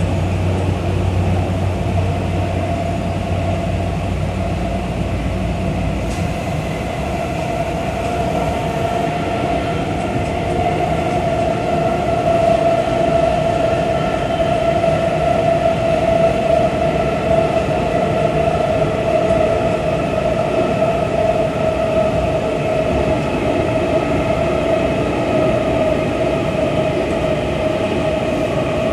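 Running noise inside a Tobu 9050-series electric train car travelling through a subway tunnel: a steady rumble of wheels on rail with a sustained tone that swells a little midway and eases toward the end. A low hum drops out about six seconds in.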